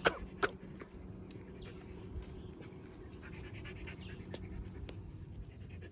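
Quiet outdoor background with faint bird and insect sounds. Two short sharp sounds come right at the start, about half a second apart.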